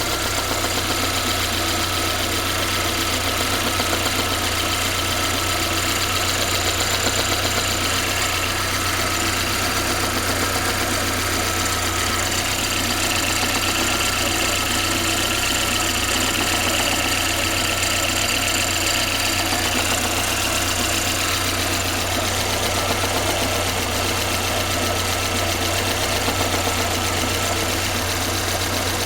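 VAZ-2114 inline-four petrol engine idling steadily with a knocking sound that the owner is unsure is normal.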